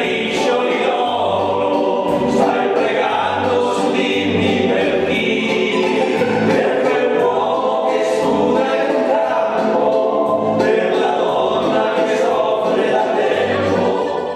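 Music with a choir singing over a bass line that returns about once a second.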